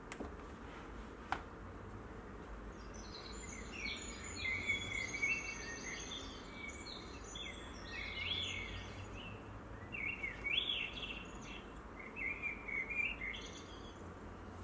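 Usborne Garden Sounds book playing a recording of a small bird singing: quick chirping, twittering phrases for about ten seconds, starting about three seconds in. A single sharp click comes about a second in.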